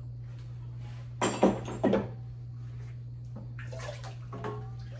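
Water splashing and sloshing in an electrolysis tank as a cast iron pan is lifted out of it. The loudest splashes come about a second in, with softer sloshing and dripping near the end, all over a steady low hum.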